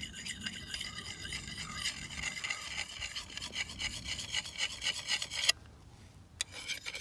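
A flat hand-held stone rubbed in small circular strokes against the convex front edge of a large steel chopping knife, a continuous gritty scraping as the edge is sharpened. The scraping stops about five and a half seconds in, then after a single click starts again just before the end.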